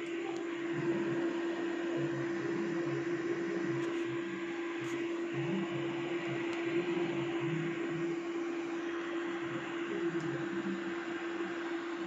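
Small USB fan motor in a homemade tube vacuum cleaner, running on a power bank. It gives a steady, even hum with a constant rush of air, and the pitch does not change.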